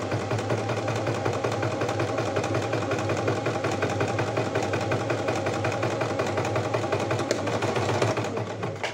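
Domestic electric sewing machine running steadily, sewing a forward straight stitch through fabric: a constant motor hum under the rapid tapping of the needle, stopping abruptly at the very end.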